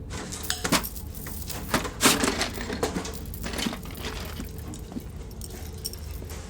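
Irregular knocks, clicks and clattering, loudest about two seconds in and sparser after the middle, over a low steady hum.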